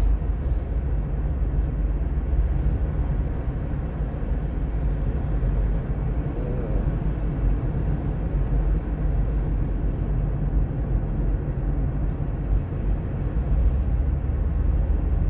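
Steady low road and engine noise heard from inside a moving car's cabin.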